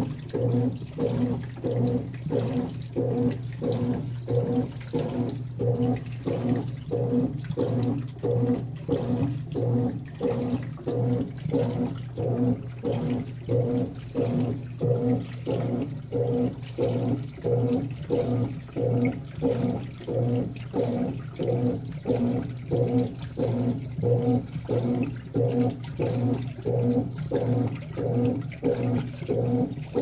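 Consul 16 kg top-load washing machine agitating a full load of bedding in deep water: rhythmic sloshing and swishing, about three strokes every two seconds, over a steady motor hum.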